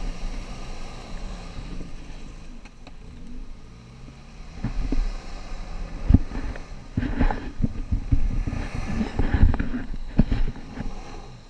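Off-road 4x4 engines running at low revs on a rutted mud track. Irregular knocks and thumps come from the jolting vehicle and grow louder about halfway through, over a low wind rumble on the microphone.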